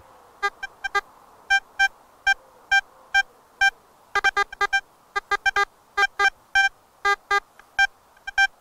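Metal detector target tones: many short, irregularly spaced beeps, most at one pitch with a few lower-pitched ones, over a faint steady hum, as the search coil is swept over ground full of iron.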